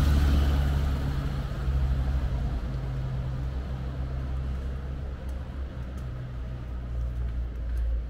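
Low rumble of a car engine on the road, loudest at first and fading gradually.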